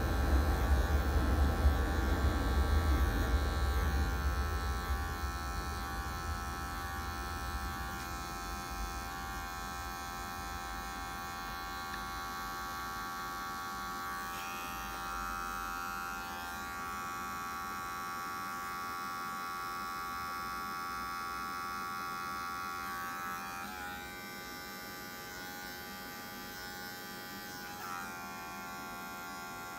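Electric hair clipper, run with no guard, buzzing steadily as it cuts hair close to the skin. Its pitch wavers a few times in the second half.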